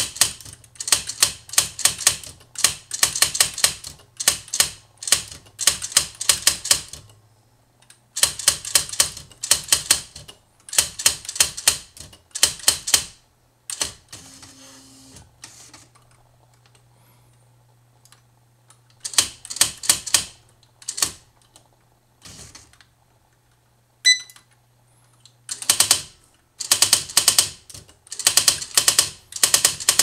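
Smith Corona XL 1900 electronic typewriter printing a line of text automatically: rapid bursts of print strikes, one burst per word with short gaps between. Between lines the carriage returns and the paper advances with a softer mechanical whirr. A short electronic beep comes about three-quarters of the way through.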